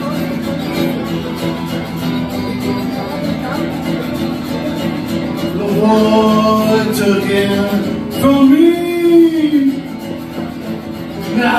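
A man singing to his own acoustic guitar. The guitar is strummed alone at first; the voice comes in about six seconds in with long held notes, pauses briefly, then returns near the end.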